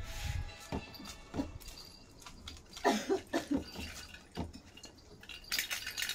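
Scattered light taps and knocks of a plastic laundry basket and a toy ball on a tile floor as cats play with them, with a quick run of short pitched sounds about three seconds in and a brief scraping hiss near the end.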